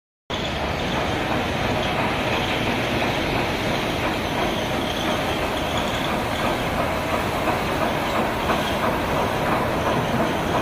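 Large ceramic ball mill turning, its grinding charge tumbling inside the drum with a steady, dense clatter that starts a moment in.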